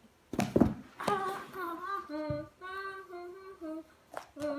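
A child singing a short tune in held notes without words. A couple of dull thumps come from the notebook hitting the carpet, one about half a second in and more near the end.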